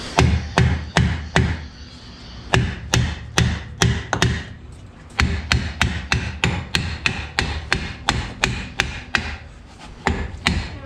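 Hammer striking a rusty front brake drum on a 1969 VW Beetle, metal on metal, to knock the drum loose from the spindle. The blows are sharp and come about two to three a second, in three runs: four blows, a short pause, five more, another pause, then a steady run to the end.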